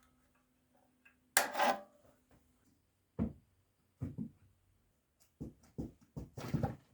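Wooden concrete shuttering boards being handled and knocked: a rough scrape of wood on wood or concrete about a second and a half in, then a string of separate knocks that come closer together near the end.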